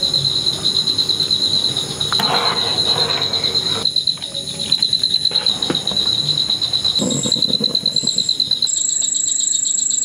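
Crickets chirping in a fast, pulsing trill, with a second, higher insect trill joining near the end. A few soft clinks come from stirring a pot on the stove.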